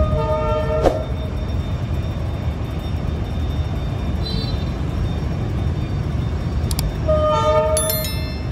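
D19E diesel-electric locomotive sounding its air horn in two blasts of about a second each, one at the start and one about seven seconds in, over the steady low rumble of its diesel engine.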